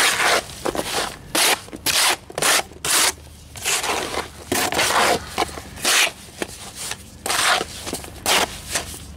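A hand trowel scraping and stirring through damp, crumbly rapid-set mortar mix in a mortar tub. The gritty strokes come irregularly, about one or two a second.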